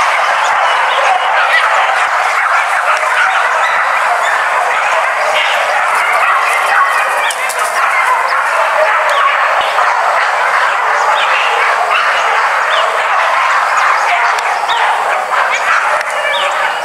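Pack of hunting dogs barking and yelping without pause, many voices overlapping in a steady din.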